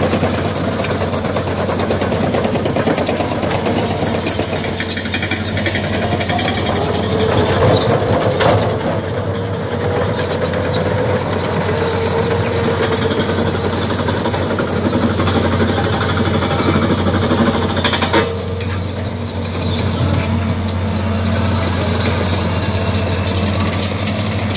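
Pneumatic micropile drilling rig boring into dolomite rock: steady, rapid percussive hammering over a running engine, with a short drop in level about 18 seconds in.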